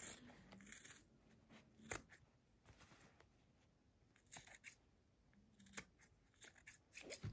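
Scissors trimming through the seam allowance of a sewn cotton fabric mask: a handful of faint, separate snips spread out with pauses between them.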